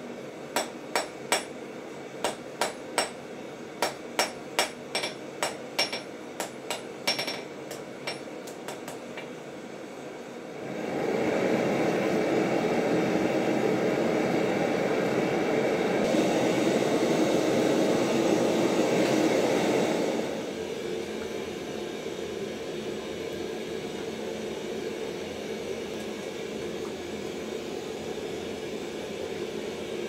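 Hand hammer striking red-hot steel on an anvil, about twenty ringing blows over the first nine seconds that grow lighter toward the end. Then a gas forge's burner runs as a loud, even rush for about ten seconds before dropping to a quieter, steady rush.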